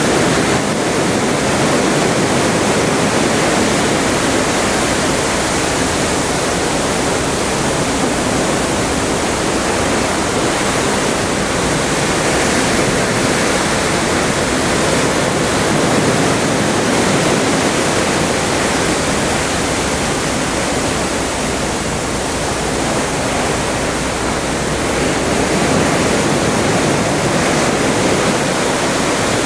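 Seawater rushing and churning along the hull of a cruise ship under way on the open Atlantic: a loud, steady wash with gentle rises and falls.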